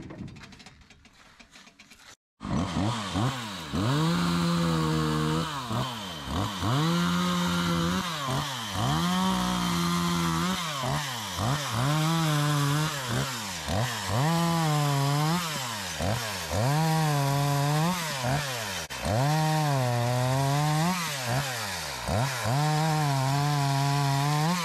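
Small Echo two-stroke chainsaw revving and cutting through short lengths of birch, the engine rising to full speed and dropping back about ten times, once for each cut. It starts suddenly a couple of seconds in.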